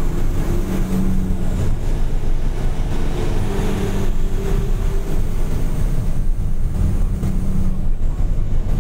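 Loaded heavy truck's diesel engine and road noise heard from inside the cab: a steady low drone, with the engine note swelling and fading several times as the truck begins a descent.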